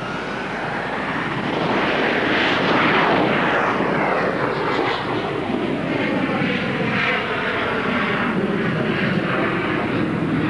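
Harrier GR7 jet's Rolls-Royce Pegasus vectored-thrust turbofan powering up for takeoff: a whine rising in pitch, then loud jet noise that swells over the first couple of seconds and holds steady as the jet lifts off the runway.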